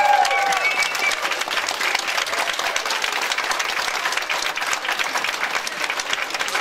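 Audience applauding steadily, a dense patter of many hands clapping, with a held tone fading away in the first second.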